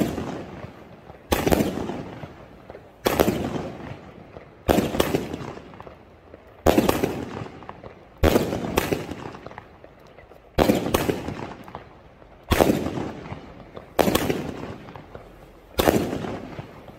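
A fireworks battery firing loud bangs at an even pace, about one every one and a half to two seconds, some of them doubled. Each bang is followed by a long echo.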